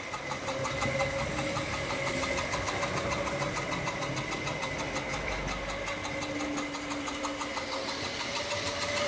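Tri-ang OO-gauge model trains running: a steady electric-motor whine with a fast, regular clicking of wheels and mechanism.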